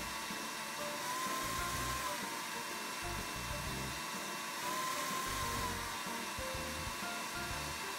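Smeg countertop blender running on speed setting 3, blending a thick green vegetable smoothie with carrot: a steady motor whir whose note climbs briefly twice, each time for about a second. Soft background music plays underneath.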